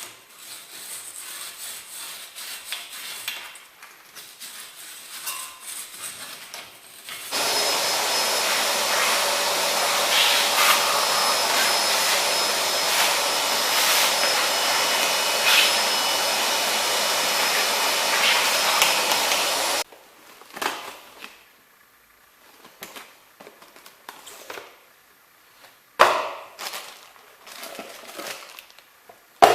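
A powered workshop tool runs steadily for about twelve seconds, starting and stopping abruptly, a few seconds in. Before and after it come scattered clinks and knocks of hand tools and parts being handled.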